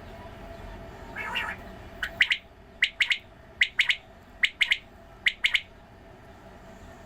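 Quail calling: after a short rough squawk about a second in, a run of five quick, sharp phrases of two or three notes each, evenly spaced under a second apart.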